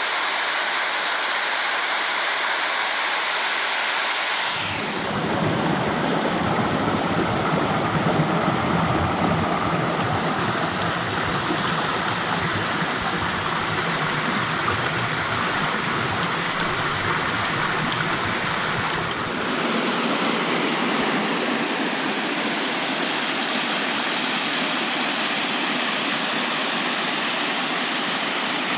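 Steady rushing of a waterfall or mountain creek, with no other sounds. The water sound changes abruptly twice, deeper and heavier about four and a half seconds in, then lighter with less low rumble near twenty seconds in.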